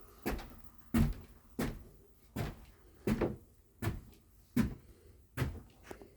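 Heavy footsteps on wooden stairs, about nine evenly paced thuds, roughly three every two seconds.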